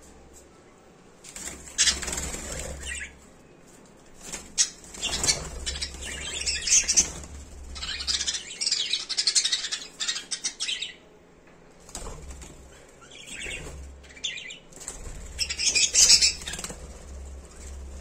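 Lovebirds flapping their wings, with high chirps, in several bursts of a second to a few seconds each.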